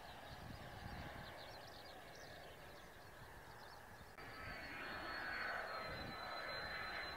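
Mitsubishi F-2 fighters' F110 turbofan jet noise. First a distant rumble and hiss, then after a sudden cut about four seconds in, an F-2 on landing approach, louder, with a steady high-pitched whine over the rumble.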